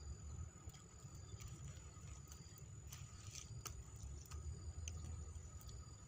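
Faint outdoor ambience: a low rumble of wind on the microphone under a thin, steady, high-pitched insect whine, with scattered light ticks and clicks.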